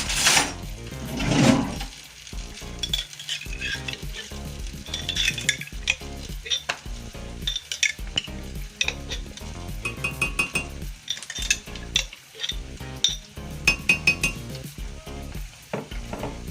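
Spoon or utensil stirring and clinking against a pot, with a sizzle of frying, over background music.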